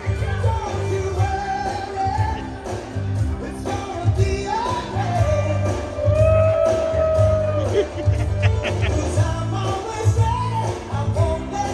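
Rock song playing, with a singer's melody over a steady bass beat; one long held note falls away a little before the eight-second mark.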